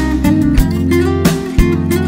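Instrumental stretch of a pop-rock song: strummed guitar over a steady drum beat, with no singing.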